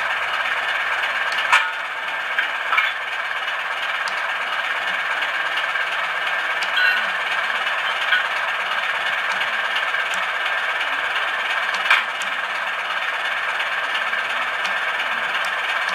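Class 33 diesel engine sound idling steadily from a DCC sound decoder through the model locomotive's small loudspeaker, thin and tinny, with a few short clicks along the way.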